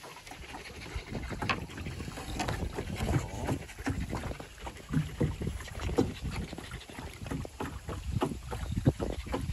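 Canoe on a river: water splashing and lapping against the hull in short irregular bursts, with wind rumbling on the microphone.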